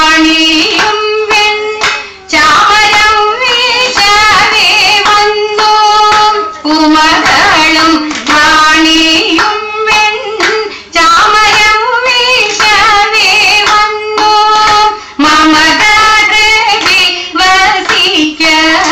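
Women singing a Thiruvathirakali (Kaikotti Kali) song in phrases a few seconds long, with sharp rhythmic hand claps from the dancers.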